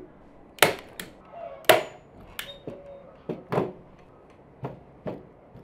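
A hand staple gun snapping as it drives staples through upholstery fabric into a chair seat cushion: sharp clacks at irregular intervals, about eight in all, the loudest in the first two seconds.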